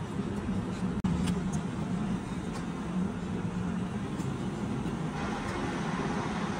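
Steady low mechanical rumble of a vehicle-like motor, with a few faint clicks; it cuts out for an instant about a second in.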